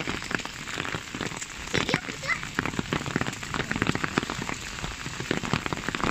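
Hail falling and pattering on an asphalt path and lawn: a dense, irregular stream of small sharp ticks.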